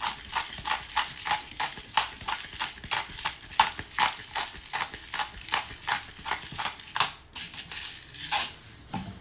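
Salt shaker shaken over a wok of chicken, a rattling run of about four shakes a second that slows into a few irregular shakes near the end.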